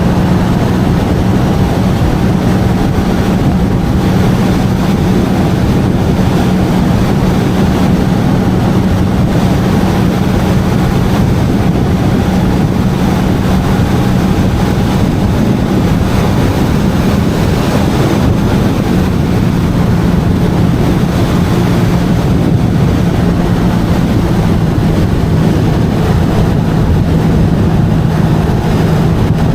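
Jet ski engine running at a steady speed under way, its note holding steady over a constant rushing noise and dropping slightly about three-quarters of the way through.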